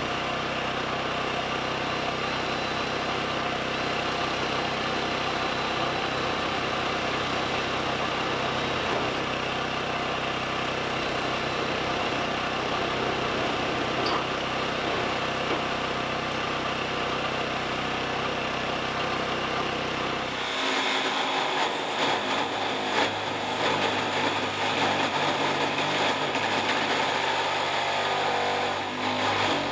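Cordless drill motor running steadily as it bores into corrugated metal roofing. About two-thirds of the way in it changes abruptly to a corded jigsaw cutting the sheet-metal roofing, a louder, rougher buzz.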